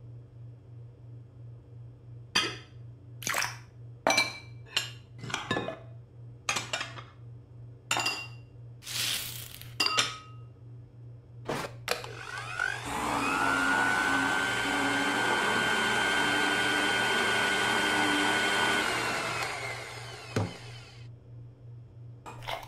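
A string of short clinks and knocks, then an electric mixer starts with a rising whine, runs steadily for about six seconds beating icing, and winds down.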